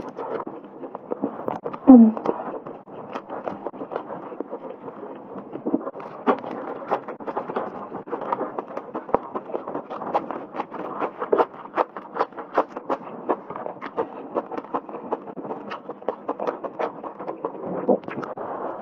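Close-up eating sounds of braised meat being bitten off the bone and chewed: wet smacking and many small clicks, with a green onion stalk chewed part way through. About two seconds in there is a short hummed voice sound with a falling pitch, the loudest moment.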